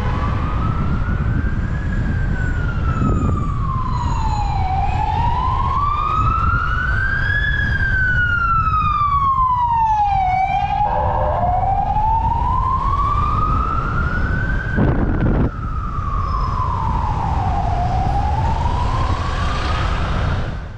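Emergency vehicle siren in a slow wail, rising and falling about every six seconds over a steady low rumble. A single short knock about fifteen seconds in.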